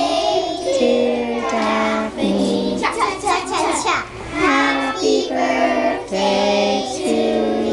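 A group of young children singing a song together, in a melody of held notes that step up and down.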